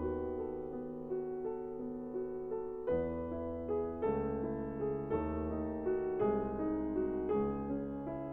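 Background piano music: sustained chords struck about once a second.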